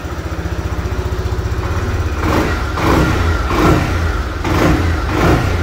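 SYM Cruisym scooter's single-cylinder four-stroke engine idling, then revved in about five quick throttle blips starting about two seconds in. It is run to turn the gears and spread freshly refilled transmission oil.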